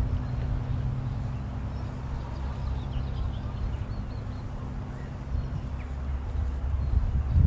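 Outdoor ambience: a steady low rumble with a few faint bird chirps, and a short low thump near the end. No bells are struck.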